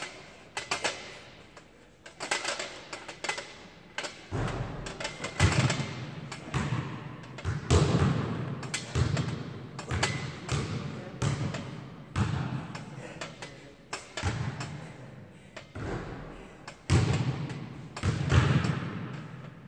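Irregular thumps and knocks, busier and louder from about four seconds in, from a pull-up bar workout in progress.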